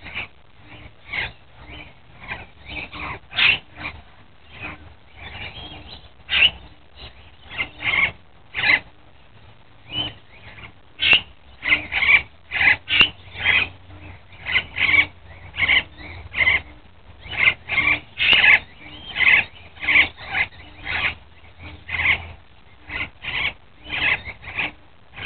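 Parrots calling in quick, short chirps and squawks, sparse at first and coming thicker and louder about halfway through.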